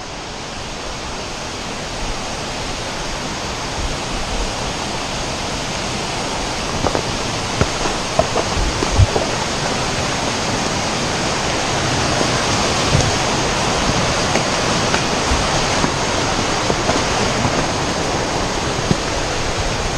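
Water running over the rocks of a bush creek or small waterfall, a steady rush that slowly grows louder as it is approached. A few light knocks sound in the middle.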